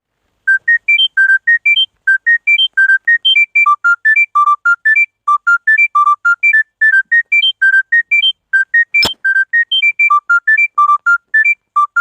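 Smartphone ringtone: a quick melody of short, pure, single-pitch notes in rising phrases that repeat, about five notes a second. There is one sharp click about nine seconds in.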